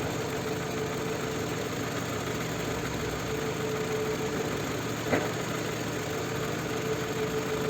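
Toyota 2AZ four-cylinder engine, freshly rebuilt, idling steadily, with a faint whine that comes and goes. The owner complains of an extraneous noise from this engine since the repair, and its VVT-i phaser is not working. There is one short click about five seconds in.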